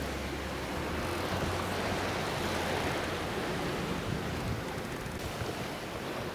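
Steady rush of wind and sea water past a sailing yacht under sail on a broad reach, with wind on the microphone.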